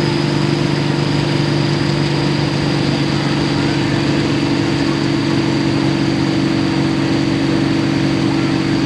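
Hot farm pulling tractor's engine idling steadily, its pitch holding level with no revving.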